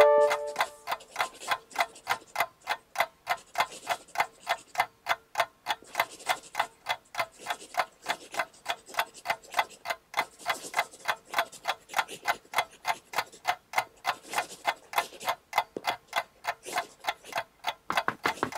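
Clock ticking in quick, even ticks, several a second, with faint pencil scribbling now and then.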